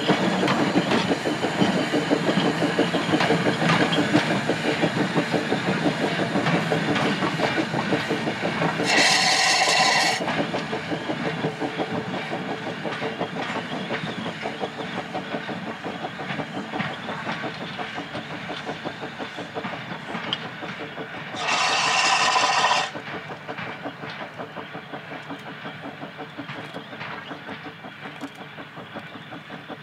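GWR steam railmotor No. 93 under steam, its rapid exhaust beats fading as it draws away. There are two short blasts on its steam whistle, about nine seconds in and again near three-quarters of the way through.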